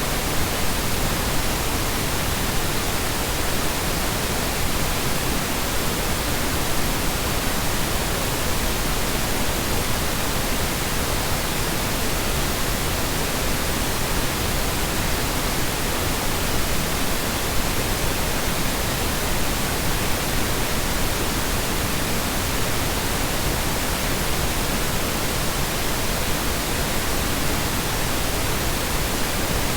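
Continuous synthetic Brownian noise, steady and unchanging in level.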